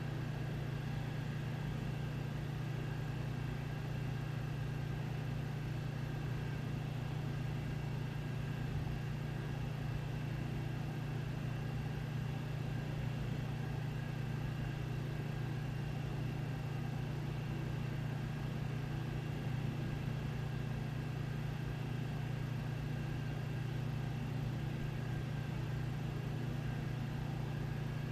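A steady low mechanical hum of household machinery, unchanging throughout, with faint high steady tones above it.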